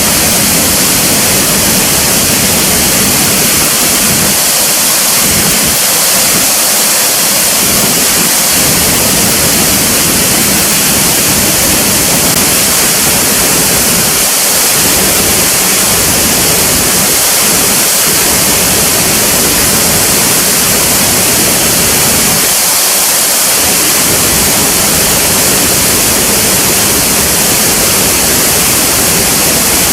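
Steady, loud rush of falling water, an even hiss with no break or change.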